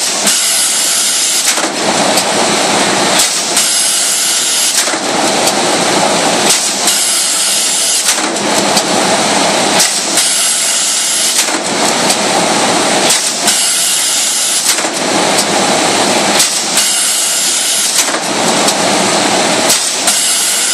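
Sheet-feeding machine running in a steady repeating cycle, about once every three seconds, each cycle switching between a high hiss and a lower rushing clatter, with sharp clicks throughout.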